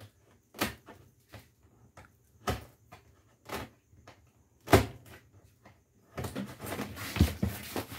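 Hands handling the taped lid of a large shipping box. A series of separate knocks and taps, the sharpest about halfway through, gives way to a rough scraping and rustling in the last two seconds.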